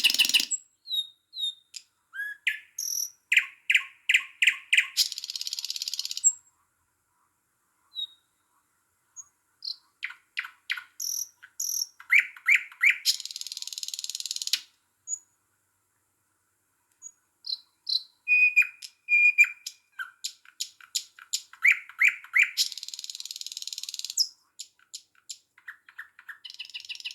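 Small songbirds chirping and singing in short repeated phrases of quick notes and buzzy trills, broken by a couple of brief silent gaps.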